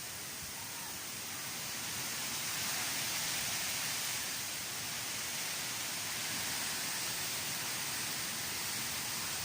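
Strong storm wind blowing, a steady rushing hiss that swells slightly a couple of seconds in.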